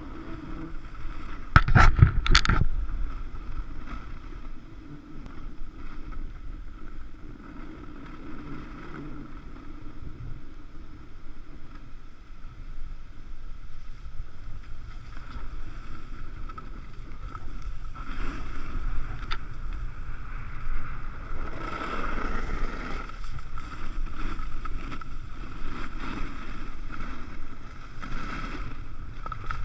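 Wind rushing over the microphone and skis sliding over packed, groomed snow during a downhill run. There are a few loud knocks about two seconds in.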